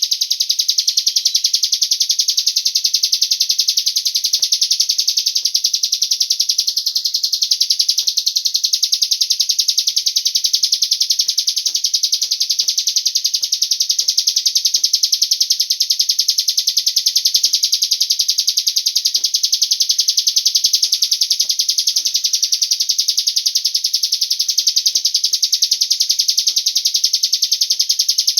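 Cigun bird song used as a lure call: a very fast, high-pitched trill that runs on without a break, with faint clicks underneath.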